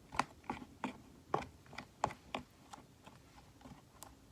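Slime being mixed in a bowl after Tide detergent has been stirred in as the activator: a run of irregular short clicks and smacks, two or three a second.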